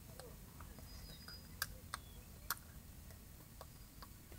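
Faint, irregular small clicks and ticks, about ten of them, the two loudest about a second and a half and two and a half seconds in, over a low steady background rumble.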